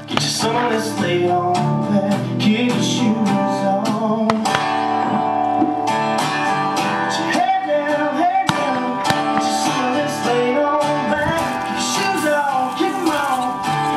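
Background country music track: strummed acoustic guitar with a singing voice.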